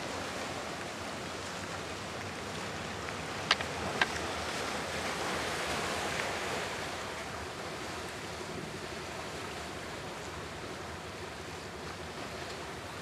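Steady wash of sea surf with some wind noise, swelling a little midway. Two sharp clicks about half a second apart stand out a few seconds in.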